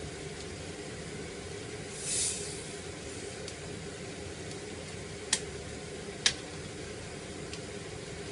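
Steady hiss and rumble of a pot of ginger and lemon boiling over a gas flame. A brief louder hiss comes about two seconds in, and two sharp clicks come about a second apart in the middle.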